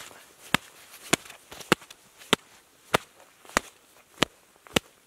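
Leather mitts slapped together in a steady beat: nine sharp smacks, evenly spaced a little over half a second apart.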